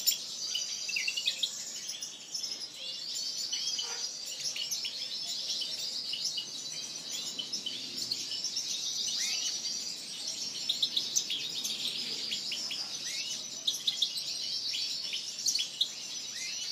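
A dense chorus of many small aviary finches chirping and twittering without pause, high-pitched and overlapping, with no single song standing out.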